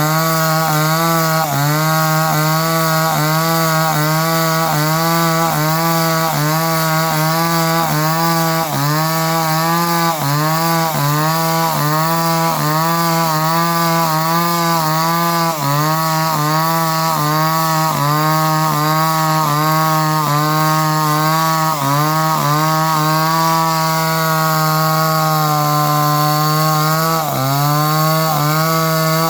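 Chainsaw engine running without a break, its pitch dipping briefly about twice a second, then holding steadier for a few seconds before dipping again near the end.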